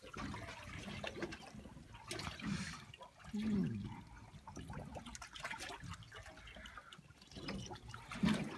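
Sea water lapping and trickling against the side of a small boat, with faint scattered ticks. About three and a half seconds in there is a brief low voice-like sound that falls in pitch.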